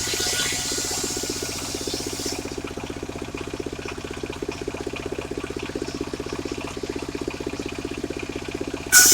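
Engine-driven circular saw running free between cuts, the engine's fast even pulse going steadily. Near the end the blade bites into sengon wood again with a sudden loud, high-pitched cutting sound.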